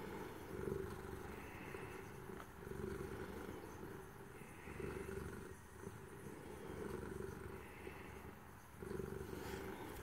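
Domestic cat purring close up, a continuous low rumble that swells and fades in slow cycles every couple of seconds.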